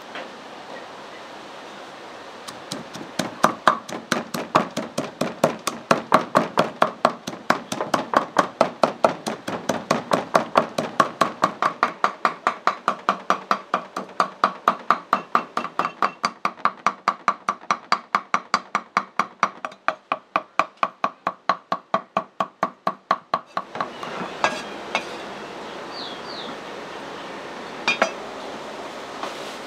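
Rapid, evenly paced strikes of kitchen food preparation, about four a second for some twenty seconds, stopping abruptly; a few single knocks and clinks follow.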